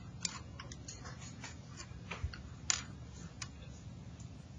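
Graphite pencil on drawing paper: short, irregular scratches and light taps as small shading strokes are put in, with a faint room hum underneath.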